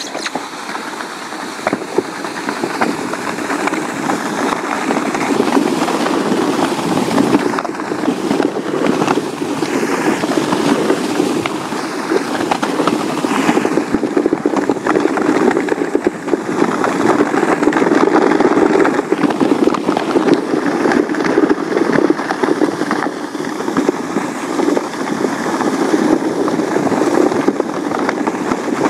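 Steady, loud rushing noise from being towed at speed over a snow-packed road behind a running husky: wind buffeting the microphone together with the ride over snow and ice. It starts suddenly as the run begins.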